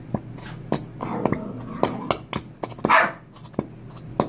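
Dogs barking repeatedly in short barks, the loudest and longest about three seconds in.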